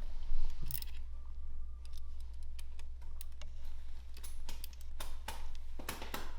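Scattered light clicks and taps at irregular intervals, as small parts and tools are handled, over a steady low hum.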